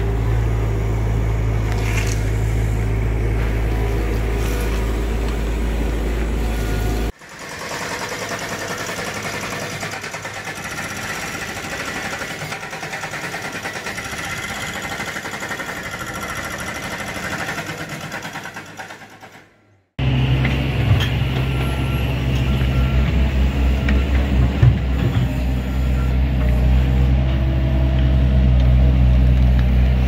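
Diesel engines of construction machinery running, in three stretches split by sudden cuts. First a skid steer loader's engine runs steadily. About seven seconds in, it gives way to fainter machine noise without the deep drone. Near twenty seconds a compact excavator's engine runs under load, with knocks and clanks as its bucket digs into dirt and rock.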